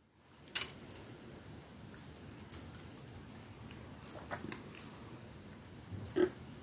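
Quiet handling sounds of beading wire and stone chip beads being worked by hand on a cloth mat: light rustling with a few small sharp clicks, the clearest about half a second in and near the end.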